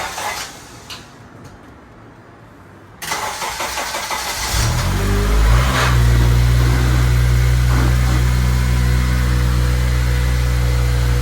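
Honda K20 inline-four engine being started: the starter cranks about three seconds in, the engine catches a second or so later, picks up briefly, then settles into a steady idle. It is the engine's first start after being put back together with a new clutch.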